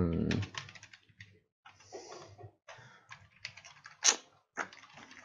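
Typing on a computer keyboard: a run of irregular keystrokes, with one sharper, louder click about four seconds in.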